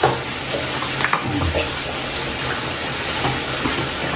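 Chicken curry sizzling in a pan, a steady hiss, with a few light clicks of a spoon stirring.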